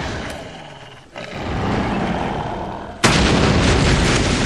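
Explosion sound effects: a sudden rumbling blast that fades, a swell of rumbling about a second in, then a much louder explosion starting suddenly about three seconds in and rumbling on.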